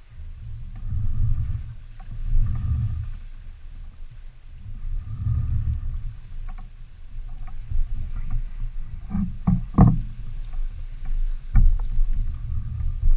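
Sailboat under sail: a low rumble of wind and water along the hull that swells and eases every few seconds, with a few sharp knocks late on.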